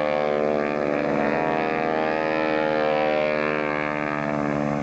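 Propeller airplane engine droning steadily during a low pass over the runway, its pitch wavering slightly partway through.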